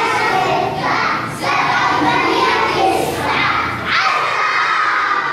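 A group of young schoolboys shouting together in chorus, ending in one long drawn-out group shout from about four seconds in.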